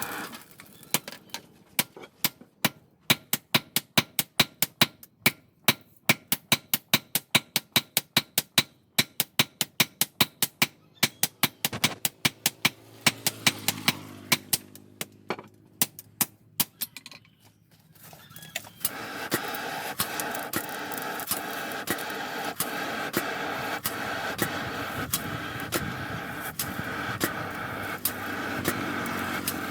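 Steel being hammered: sharp, evenly spaced metal strikes, about three a second, for most of the first two-thirds. Then a motorised tool starts and runs steadily to the end, as in shaping the chisel.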